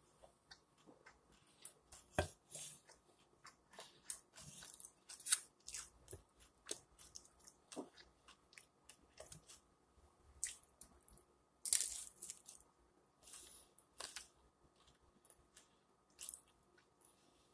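Close-up mouth sounds of someone biting and chewing chicken flautas topped with shredded lettuce and cheese: irregular short crackles and wet clicks, a few louder bites standing out.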